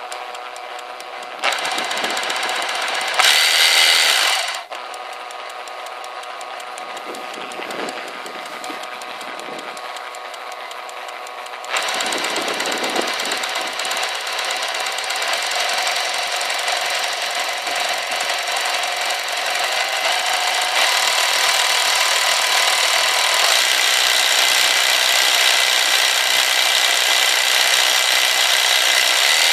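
Electric jigsaw running with its blade stroking in free air, not cutting. Its speed and loudness change: a brief louder burst about three seconds in, a quieter stretch, then a step up to a steady higher speed about twelve seconds in.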